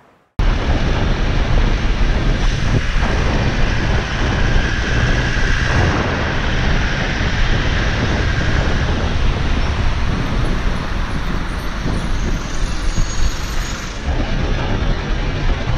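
Road traffic heard from a bicycle riding in town traffic: the engines and tyres of a van and buses close alongside, with steady wind rush over the microphone. It starts suddenly about half a second in.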